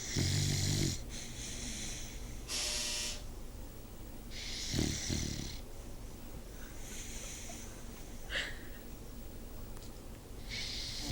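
Dog snoring in its sleep: a rasping snore on each breath, about every two seconds, the loudest at the very start.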